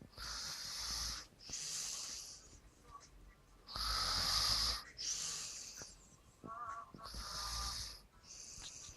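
A person snoring: a run of hissing breaths about a second apart, with a short wavering whistle about two-thirds of the way through.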